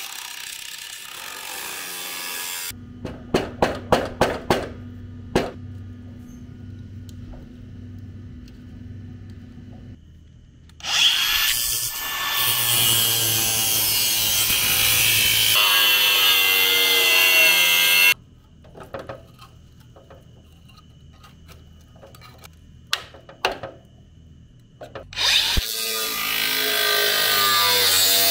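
Makita angle grinder cutting into rusted sheet steel, in several short stretches that start and stop abruptly. A few seconds in comes a quick run of about seven sharp metal knocks.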